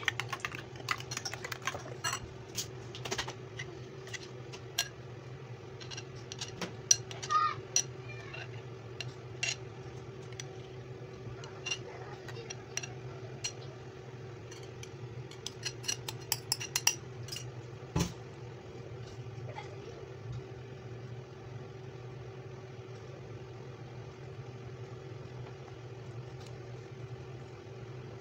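Metal cutlery clinking and scraping against a ceramic bowl as eggs are beaten and then scraped out of the bowl, in irregular taps with one sharp knock about 18 seconds in. A steady low hum runs underneath and is all that remains for the last ten seconds.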